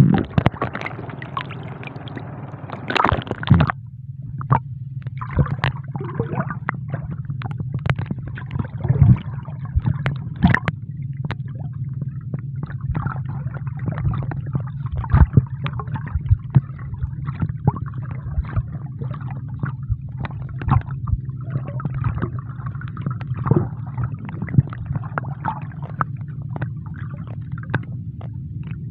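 Muffled underwater sound picked up by a camera held beneath the sea: a steady low rumble of water with many scattered clicks and crackles, heaviest about three seconds in.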